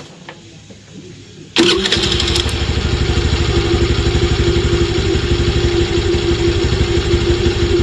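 Honda Dio 2021 scooter's 110 cc single-cylinder engine, fitted with its stock air filter, started: it catches suddenly about a second and a half in and then idles steadily with an even pulse.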